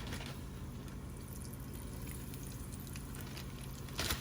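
Flour-coated chicken wings sizzling in hot frying grease: a steady crackling hiss. Near the end a louder rustle and clatter starts.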